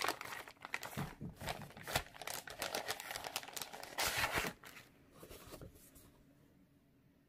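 A clear plastic bag crinkling as a paper cross-stitch chart is slid out of it: irregular crackles with a loud burst at the start and another about four seconds in, dying away by about six seconds.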